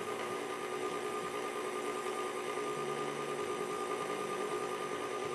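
Electric stand mixer motor running steadily, kneading flour into dough with its dough hook, an even hum with a constant whine.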